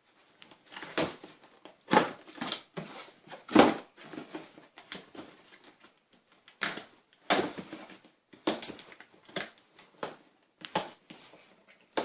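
Packaging being opened by hand: irregular crinkling, rustling and short ripping sounds, about a dozen sharp bursts with quieter rustle between them.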